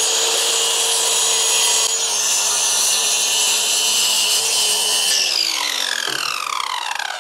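Ryobi corded circular saw cutting through a sheet of engineered-wood T1-11 siding with a steady high whine. About five seconds in the cut finishes, the trigger is released and the motor winds down, its whine falling in pitch.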